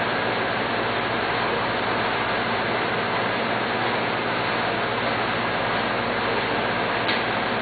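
Steady hiss of background noise with a faint low hum, unchanging throughout, and a faint click about seven seconds in.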